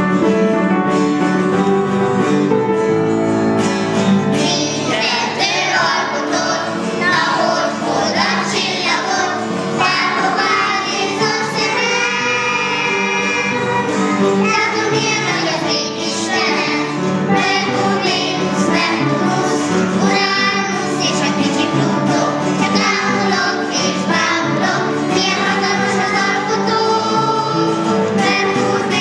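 A child singing a Christian children's song in Hungarian, over a backing of held chords.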